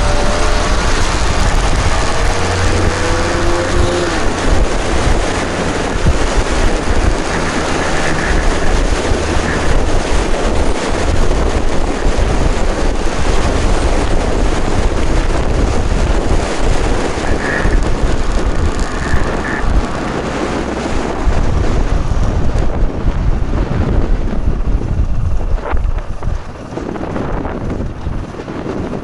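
Wind rushing over the microphone of a moving Aprilia RS250 motorcycle, with its two-stroke engine underneath and a faint rising engine note about two to four seconds in. The rush grows quieter and thinner over the last several seconds as the bike slows.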